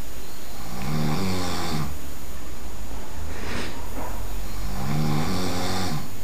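A sleeping person snoring loudly: two long, rasping snores about four seconds apart, with a breathy breath between them.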